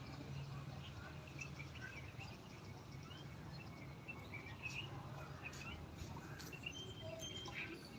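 Several birds chirping and calling in quick short notes, with one held whistled note near the end, over a faint steady low background hum.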